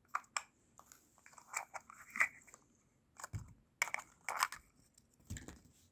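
Packaging being handled while a rifle scope is unboxed: a string of irregular short rustles and clicks, the loudest a little after two seconds and again past four seconds.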